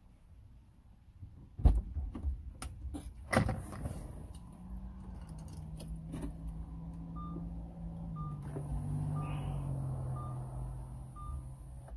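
Two sharp knocks, then the car's power window motor running as the door glass winds down, its hum dropping in pitch as it goes. A short electronic warning chime beeps repeatedly over the motor in the second half.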